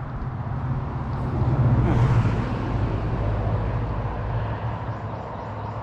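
A road vehicle passing by, its rumble swelling to a peak about two seconds in and then fading away.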